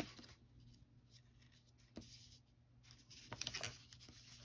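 Faint handling of cardstock on a desk: a light tap at the start, another about two seconds in, and a short paper rustle a little after three seconds.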